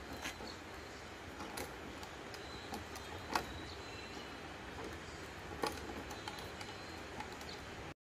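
Quiet background hiss with a few soft, scattered clicks and taps, the loudest about three and a half seconds in, from hands handling a plastic water bottle and fishing line while tying the line on. A faint thin high tone sounds in the middle.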